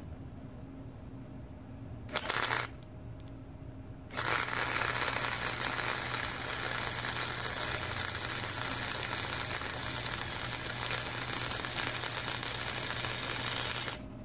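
Wire-feed welder arc crackling and hissing on bed-frame steel tubing. A brief half-second tack comes about two seconds in, then a steady bead of about ten seconds that stops abruptly just before the end.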